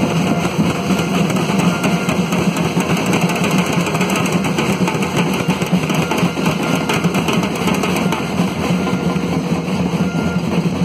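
Protest drums, bass drums and snare drums, beating together in a loud continuous rhythm amid the crowd.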